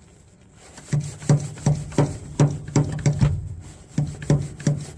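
Hand-pumped hydraulic crimping tool being pumped to crimp a lug onto a jumper cable: a rhythmic series of short creaking strokes, about three a second, starting about a second in.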